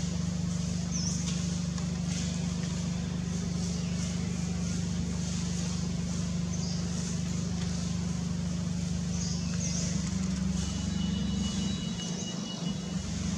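A steady low mechanical hum, like a motor running, with a few faint high chirps over it. The hum shifts slightly higher about ten seconds in.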